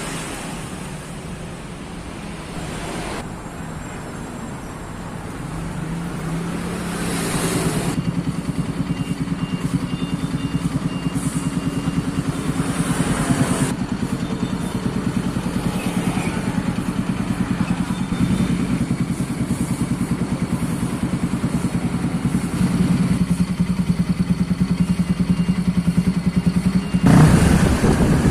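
Bajaj Pulsar NS200's single-cylinder four-stroke engine, with a freshly ported and polished cylinder head, running steadily with an even pulse. It is quieter at first and becomes louder and steadier about eight seconds in.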